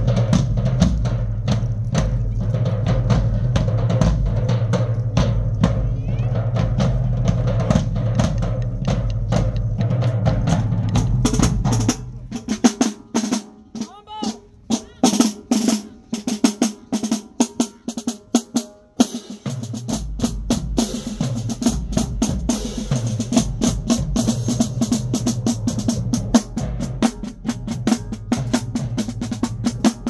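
High school marching band drumline playing a cadence on snare drums, bass drums and cymbals. About twelve seconds in it drops to sparse single snare and cymbal strikes. The full drumline comes back in about eight seconds later.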